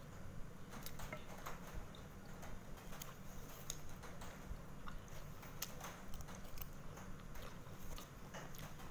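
Satay being chewed, with scattered light clicks and scrapes of a metal fork working meat off bamboo skewers.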